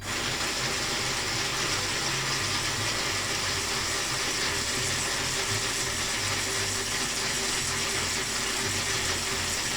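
Geared motor of a home-built robot arm joint running steadily as it drives the arm down. It starts suddenly and holds an even mechanical whir with a faint steady hum.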